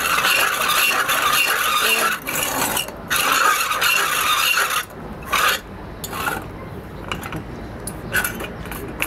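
Hand-turned iron drill grinding out the inside of an alabaster vase blank: a harsh rasping scrape in long stretches through the first five seconds or so, then a few short scrapes.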